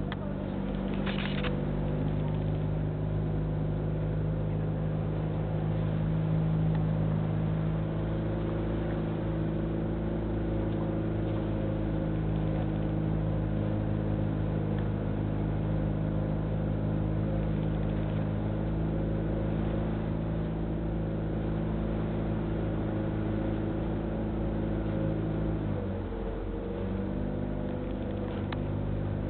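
Engine of a motorized outrigger boat (bangka) running steadily at cruising speed, a low even drone. Near the end its note drops slightly and it runs a little quieter.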